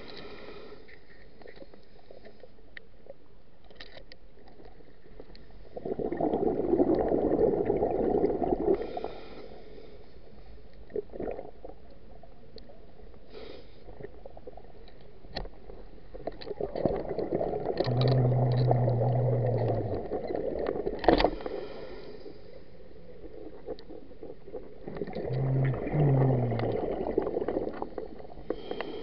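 A scuba diver's regulator exhaling underwater: three gurgling bursts of bubbles about nine seconds apart, the last two with a low hum, heard through the camera's waterproof housing. A single sharp click comes between the second and third bursts.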